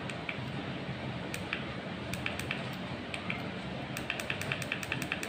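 Repeated sharp clicks of the push button on a small LCD battery capacity (state-of-charge) meter as its cell-count setting is stepped up one press at a time. Scattered presses at first, then a quick even run of clicks from about four seconds in, over a low steady hiss.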